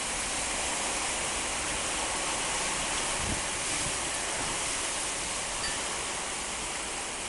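Violent windstorm: a loud, steady rush of wind and heavy rain.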